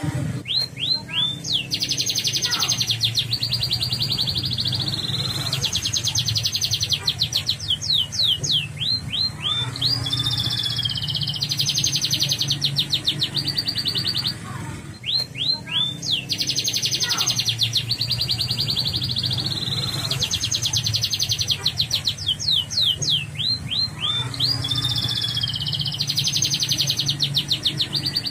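Yellow domestic canary singing: long phrases of fast, rolling trills, each opening with a few quick downward-sweeping notes, with a brief pause about halfway through. A steady low hum runs underneath.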